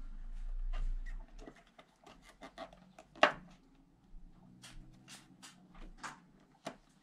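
Hands handling the spark plug lead and cables on a small outboard engine's powerhead: a scatter of small clicks, taps and rubs of plastic and rubber parts, with one sharper click about three seconds in.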